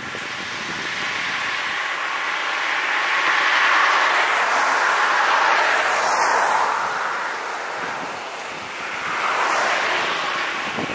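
Road traffic passing close by: tyre and engine noise swells to a peak about four to six seconds in and fades away, then a second, smaller swell comes near the end.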